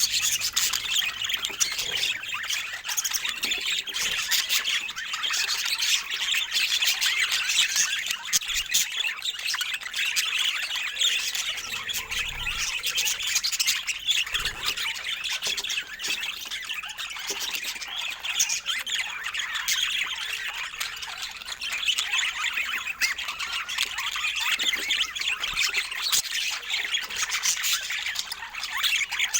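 Budgerigars chattering and warbling nonstop, a dense stream of quick high chirps and squawks.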